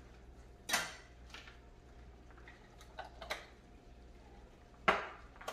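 A few sharp clicks and knocks of small kitchen containers being handled and set down on a countertop. The loudest comes about a second in and again near the end.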